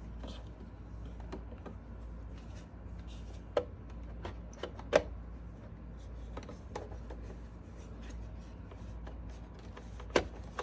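A few sharp clicks and taps from handling the parts of a Roomba J7 robot vacuum during maintenance, spaced irregularly over a low steady hum.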